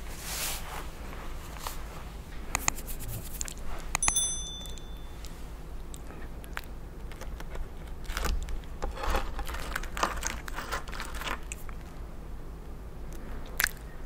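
Fingers handling the crisp toasted crust of a grilled cheese sandwich: scattered short crunchy clicks, crackles and scrapes, thickest in the middle stretch. There is a short bright ringing tone about four seconds in.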